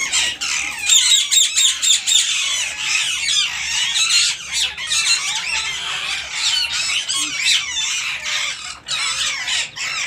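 Rose-ringed parakeets screeching, with shrill calls overlapping almost without pause.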